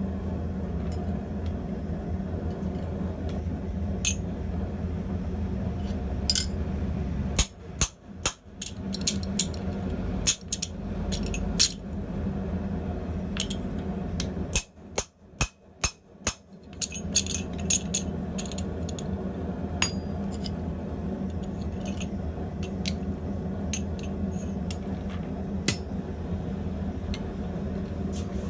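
Blacksmith's tools working hot steel: scattered metallic clinks and ringing taps over a steady low hum, with a quick run of about six strikes around the middle.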